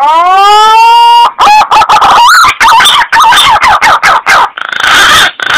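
Punai (green pigeon) call played as a hunting lure: a loud whistled note rising over about a second, then a run of quick warbling notes that waver up and down, ending in three harsh, noisy bursts.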